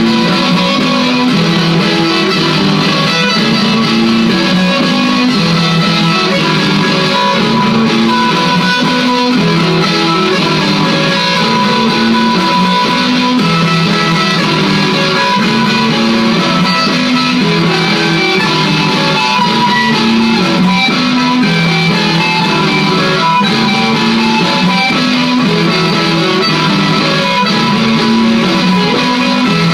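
Gretsch Electromatic electric guitar played through a looping pedal: layered guitar parts repeating over and over at a steady level.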